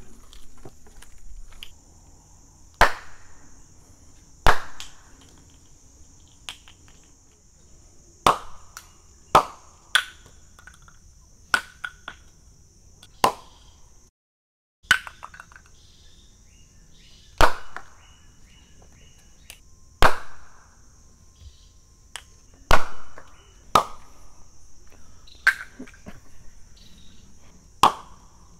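Plastic film canisters loaded with runny paint and half an Alka-Seltzer tablet popping one after another as gas pressure from the fizzing tablet blows their caps: about fifteen sharp pops at irregular intervals, some with a short splattering tail.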